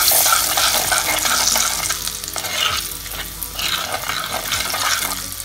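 A metal spoon stirring spice powders through hot mustard oil in an unglazed clay pot, scraping the pot as the oil sizzles on its own heat with the flame off. The sizzle eases off over the last couple of seconds.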